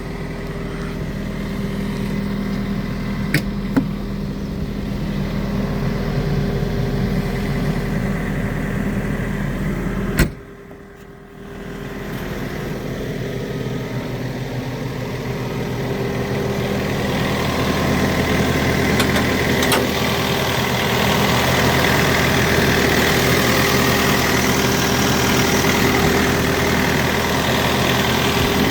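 John Deere 317G skid steer's diesel engine idling steadily. About ten seconds in the sound cuts out for roughly a second, then the engine is heard again, growing somewhat louder toward the end.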